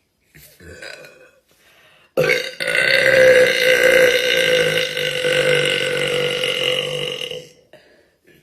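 A woman's long, loud burp, held at a steady pitch for about five seconds. It starts about two seconds in, after a few faint small sounds, and dies away near the end.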